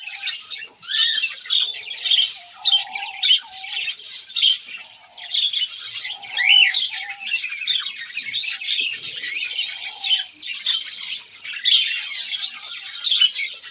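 Aviary birds, ringneck parakeets among them, chirping and squawking without a pause, with many overlapping high calls and a few shorter, lower calls beneath the chatter.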